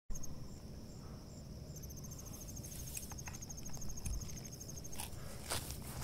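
Night insects, crickets and katydid-type bugs, calling in a steady high chorus. About two seconds in, one insect starts a fast pulsed trill that stops near the five-second mark. A few soft clicks or rustles and a low rumble lie underneath.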